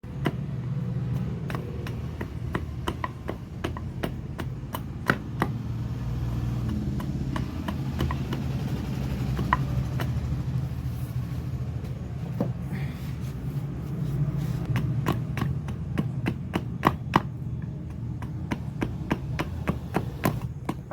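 Wood being shaped for a gilli with a hand tool, giving irregular sharp knocks, one to three a second, some louder than others. A steady low hum runs underneath.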